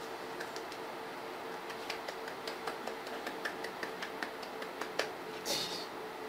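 Light, quick hand clapping, about five or six claps a second for some three seconds, then a short hissy burst near the end, over a faint steady hum.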